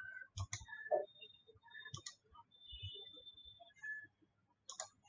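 Faint computer mouse clicks at uneven intervals, with two coming close together near the end, as options are picked in a web form.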